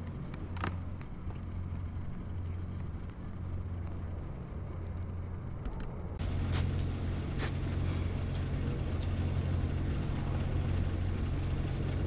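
An engine running steadily with a low hum, louder from about six seconds in, with a few sharp clicks over it.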